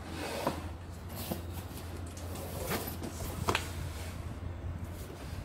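A large flat-pack cardboard box being handled on a wooden floor, lifted and turned on its edge. Four short knocks and scuffs of cardboard come over a light rustle, with a steady low hum underneath.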